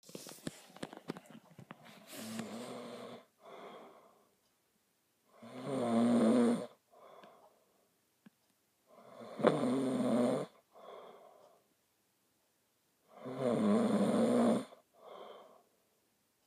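A sleeping person snoring, four low-pitched snores about every four seconds, the first one quieter. Each is a strong drawn-in snore of over a second followed by a shorter, fainter breath out. A few sharp clicks come in the first two seconds.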